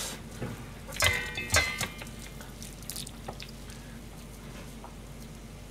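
Wet, squelching handling of soft fried tofu pouches and raw minced-chicken filling as they are stuffed by hand in a stainless steel bowl, with a short cluster of louder knocks about a second in and a few faint clicks after.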